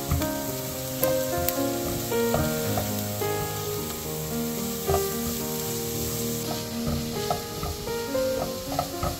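Grated carrot and chopped onion sizzling in oil in a non-stick frying pan while a spatula stirs them, with several sharp clicks of the spatula against the pan. Background music plays throughout.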